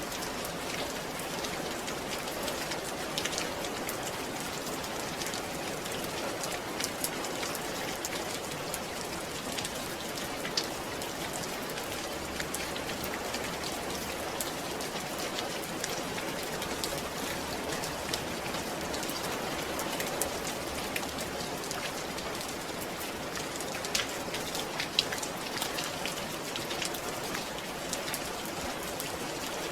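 Steady rain falling and pattering on a surface, with scattered individual drop splats.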